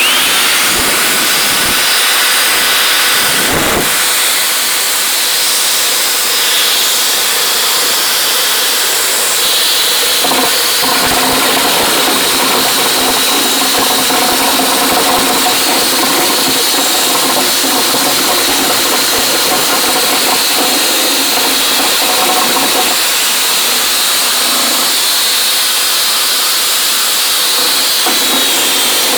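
Power drill spinning a rotary brush on fiberglass rods inside a dryer vent pipe: a steady motor whine over a loud scrubbing hiss, with the tone shifting as the brush is pushed and pulled.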